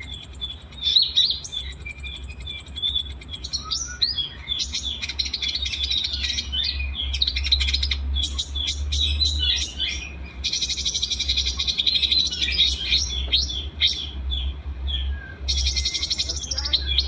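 Mix of small songbirds singing: rapid high chirps, short whistles and buzzy trills overlapping continuously, over a steady low hum.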